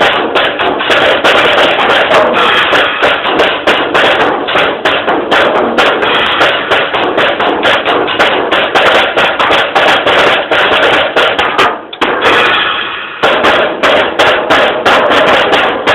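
Drum kit played in a fast solo, with dense, rapid strikes, recorded through a mobile phone's microphone. About 12 seconds in, the hits stop for about a second while a ringing dies away, then the drumming resumes.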